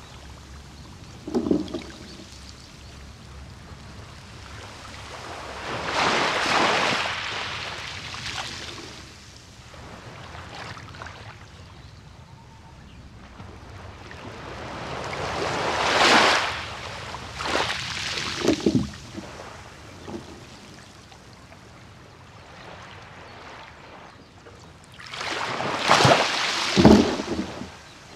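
Small sea waves washing in on a beach: three slow surges of hiss, about ten seconds apart, with short slaps and sloshes of water between them.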